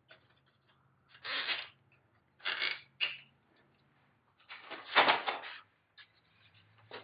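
Wooden kayak frame parts being handled: a few short bouts of rubbing and rattling as a stringer is zip-tied to a frame and a plywood coaming is set on top, the loudest about five seconds in, with small clicks between.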